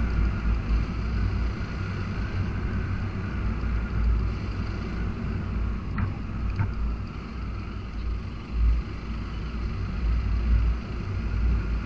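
Suzuki Gixxer SF motorcycle riding at road speed: a steady low engine drone under wind rumbling on the microphone, rising and falling in strength.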